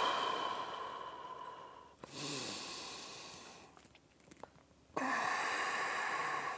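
A man's slow, deep yoga breathing, heard close to the microphone: three long rushes of air of about two seconds each, with a pause of about a second before the last one.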